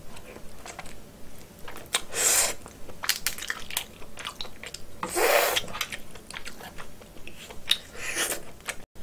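Close-miked eating of cooked snow crab meat: chewing and wet mouth clicks, with three longer sucking sounds about two, five and eight seconds in.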